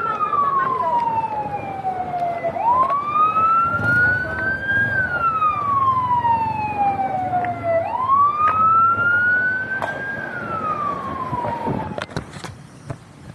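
Emergency vehicle siren sounding a slow wail. The pitch climbs for about two seconds and falls for about three, repeating about every five seconds, and it cuts off near the end.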